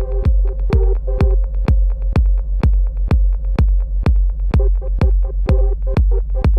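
Techno-style electronic track from a Korg Electribe 2 groovebox: a steady four-on-the-floor kick drum about twice a second over a deep sustained bass, with short ticking hi-hats between the kicks. A held synth tone drops out about halfway, and choppy synth chord stabs play at the start and return about four and a half seconds in.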